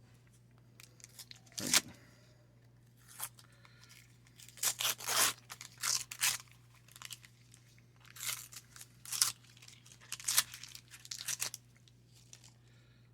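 Wax-paper wrapper of a baseball card pack being torn open and crinkled, in a string of short rips and rustles that stop about two seconds before the end.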